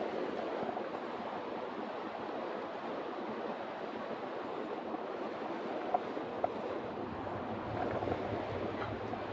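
Steady rushing of a mountain river's current, with two faint clicks about six seconds in.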